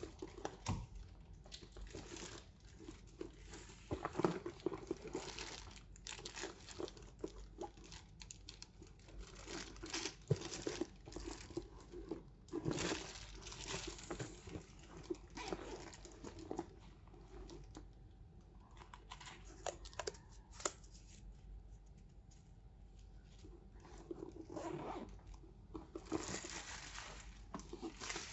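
Packaging being handled: wrapping rustles and crinkles in irregular bursts, with small sharp clicks and taps mixed in.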